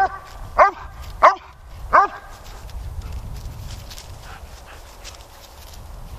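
German Shepherd barking three times in quick succession, about two-thirds of a second apart, in the first two seconds. After that only a low rumbling background noise remains.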